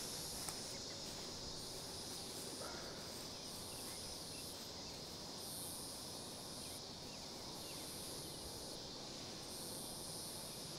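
Evening insect chorus of crickets: a steady, faint, high trill, with a higher buzzing layer that comes and goes every second or so.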